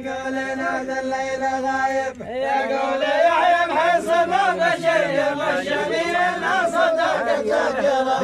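Men's chorus chanting poetic verses in the Asiri dammah style: a held note for about two seconds, then many voices chanting together with wavering pitch.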